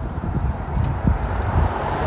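Wind buffeting the microphone: a low, uneven rumble in gusts, with a faint click a little under a second in.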